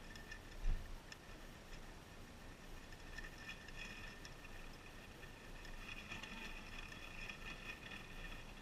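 Guinea pigs chewing close by: faint, rapid clicking and crunching that thickens in the second half, with one low bump about a second in.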